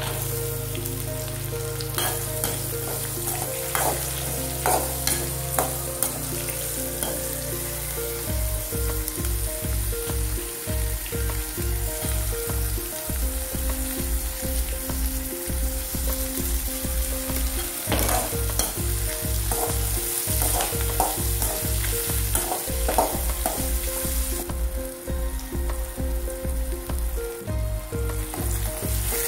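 Chopped onion sizzling in hot oil in an aluminium kadai, with a steady hiss throughout. A perforated metal ladle clinks and scrapes against the pan in clusters of clicks as the onion is stirred.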